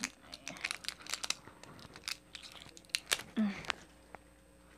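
Adhesive tape seal being picked and peeled off a jar lid: a run of short crackling tears that stop about three and a half seconds in, with a brief murmured voice near their end.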